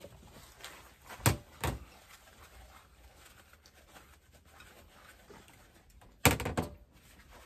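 A bowl being handled and wiped with a paper towel: soft rubbing, two sharp knocks about a second in, and a quick cluster of knocks near the end.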